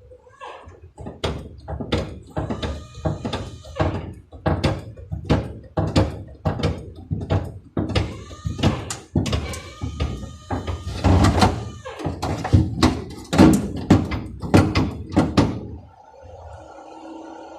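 Hammer blows on car body sheet metal, about two a second with a slight metallic ring, in a long run that stops shortly before the end.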